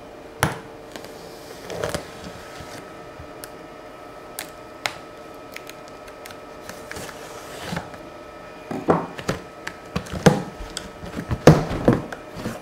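Box cutter scraping and clicking along the packing tape of a cardboard box, then louder rustling and knocks as the cardboard flaps are pulled open over the last few seconds, over a faint steady hum.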